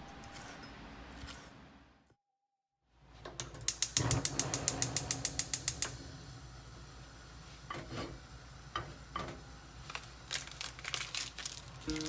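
Gas stove's igniter clicking in a rapid, even run for about two seconds as the burner is lit under a pot of water, followed by a few scattered light clicks and knocks.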